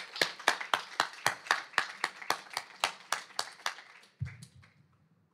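A small audience applauding: a few people clapping at a steady pace, about four claps a second, thinning out and dying away about four seconds in.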